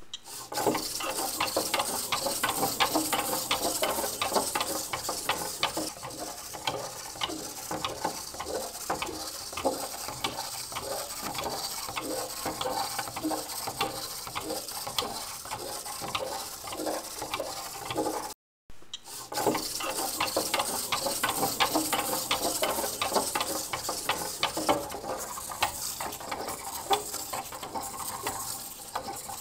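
Petoi Bittle robot dog walking on a wooden tabletop: its small servo motors whir and buzz while its plastic feet tap rapidly on the boards, a dense, fast clatter of ticks. The sound drops out for a moment about two-thirds of the way through.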